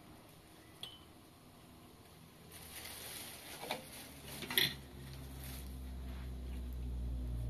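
Tea poured from a metal teapot into small tea glasses, with sharp metal clinks as the teapot is set back on the gas stove, the loudest a little past halfway. A low, steady rumble swells over the last few seconds.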